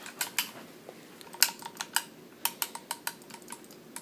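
A run of sharp, irregular clicks and taps from the hard parts of a Spyder Fenix paintball marker being handled.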